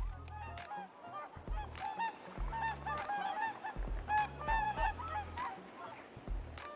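A flock of swans calling, many short honking calls overlapping one another. Low rumbles come and go underneath.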